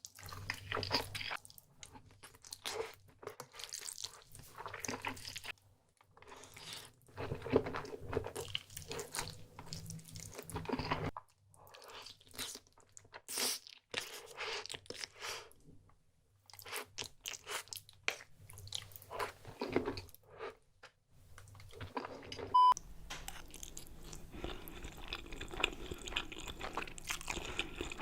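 Close-miked eating: a person chewing and biting food in irregular crunchy mouthfuls. About two-thirds of the way through, the sound cuts abruptly to another recording with a steady hiss under the chewing.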